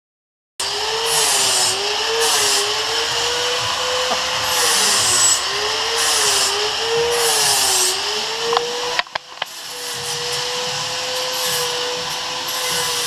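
A handheld electric power tool running under load, its motor pitch dipping and recovering about every second and a half as it is pressed into the work. It cuts out briefly with a few clicks about nine seconds in, then runs steadier.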